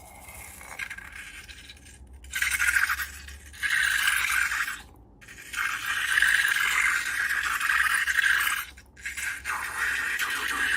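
Slime mixture being stirred and scraped in a bowl: several long scraping strokes with short pauses between them, starting about two seconds in.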